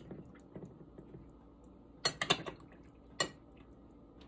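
A debubbling tool clinking against glass canning jars: a quick cluster of sharp clinks about two seconds in, then one more about a second later, with lighter taps before.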